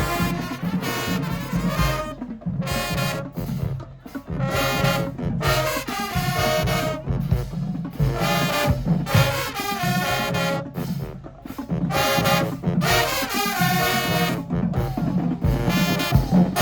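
High school marching band playing loud brass in short punchy phrases with brief breaks between them, over a steady pulse of bass drums.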